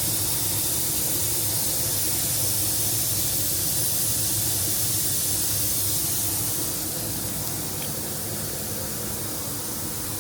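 Steady hiss of compressed air leaking from loose fittings on a pressurized rotary screw air compressor system, over a low steady hum. The hiss eases slightly about two-thirds of the way through.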